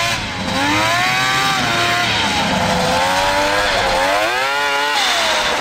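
Two-stroke engine of an X3 side-by-side converted to skis and a snowmobile track, revving hard as it is driven through snow. Its pitch climbs and drops several times, about every two seconds.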